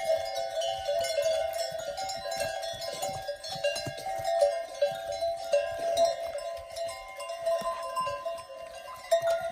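Bells on a passing train of yaks ringing continuously, many bells of slightly different pitch clanging and overlapping.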